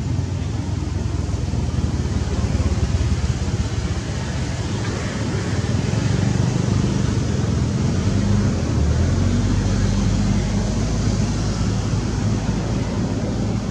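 An engine running steadily with a low, even hum whose pitch shifts about eight seconds in.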